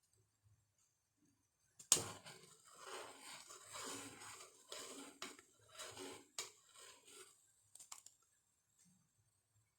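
A spoon stirring boiling milk and onion in a saucepan: a knock on the pot about two seconds in, then several seconds of rough scraping strokes at about two a second, dying away near the end with a few light clicks.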